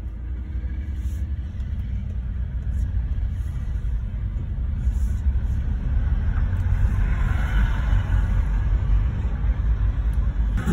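Steady low rumble of a car driving slowly, engine and road noise heard inside the cabin, growing a little louder after the first few seconds.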